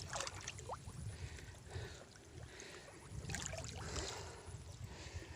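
Faint irregular splashing and sloshing of muddy water, with small drips and trickles.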